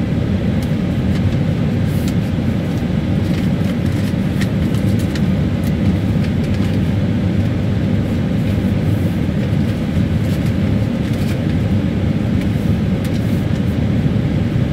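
Steady low rumble of the Airbus A318, heard from inside the aircraft while it is pushed back by a tug, with faint scattered clicks over it.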